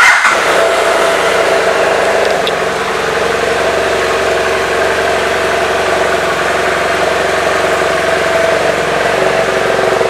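BMW F 800 R's parallel-twin engine starting up, with a brief flare, then idling steadily.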